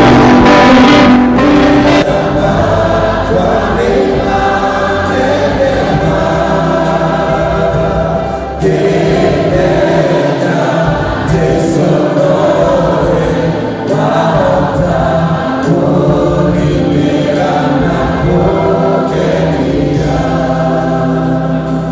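A choir singing a gospel hymn.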